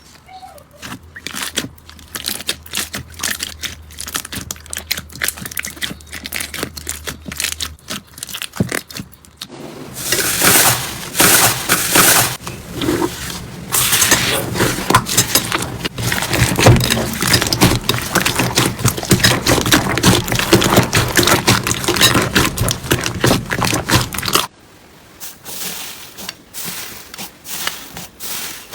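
Slime being pressed and worked by hand, giving dense crackling and popping clicks. The sound changes abruptly twice, with a much louder crackling stretch in the middle.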